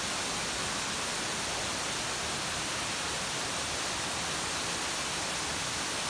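Steady rushing of a waterfall just ahead, an even hiss of falling water with no breaks.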